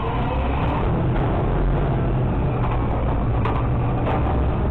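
Garbage truck's diesel engine running steadily, with a few short knocks from the hopper about three and a half seconds in.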